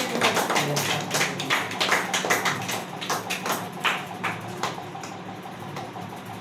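A small group clapping in time, about four claps a second, thinning out and stopping about four to five seconds in.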